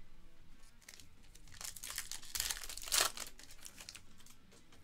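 Crinkly rustling of clear acetate trading cards being slid and shuffled against each other in the hand. It starts about a second in, is loudest in two short scrapes near the middle, and tapers off.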